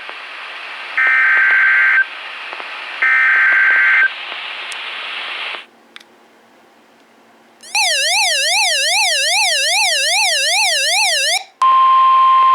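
NOAA Weather Radio emergency alert signals: three one-second bursts of the SAME data header's raspy digital tones a second apart, a short pause, then a loud warbling siren-like tone sweeping up and down for about four seconds. Near the end the steady 1050 Hz warning alarm tone begins.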